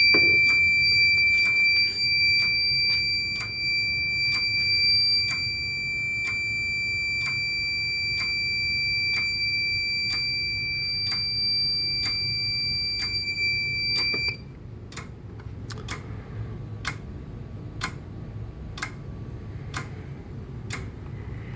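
Fire alarm system in alarm after its smoke detector was set off with canned test smoke: a steady, high-pitched electronic alarm tone that cuts off suddenly about two-thirds of the way through. Sharp ticks repeat about once a second throughout.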